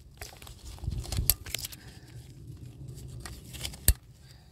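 Hands working on a fuel injector wiring connector: rustling and scraping with a few sharp clicks and snaps, the loudest near the end.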